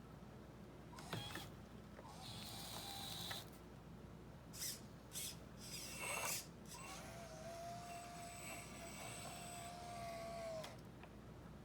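1/12-scale RC hydraulic excavator: a few short clicks and whirs, then its hydraulic pump running with a steady whine for about four seconds before it stops.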